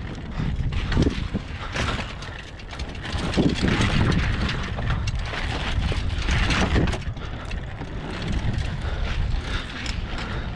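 Mountain bike rolling over wooden slat features and then dirt track, with repeated knocks as the tyres cross the boards over a steady rumble and wind rushing over the microphone.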